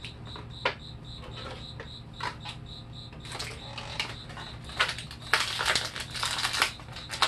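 Clear plastic packaging being handled: scattered clicks and snaps of a plastic accessory tray, then, from about three seconds in, dense crinkling of a clear plastic bag as an action figure is worked out of it. A faint, high, even chirp repeats about five times a second through the first half.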